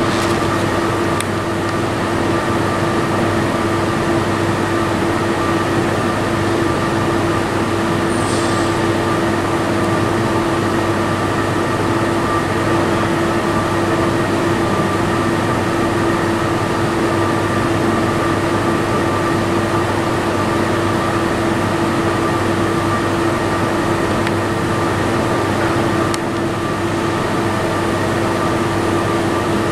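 Airbus A380's four Engine Alliance GP7200 turbofans at taxi idle: a steady rumble with a constant whine that holds the same pitch throughout.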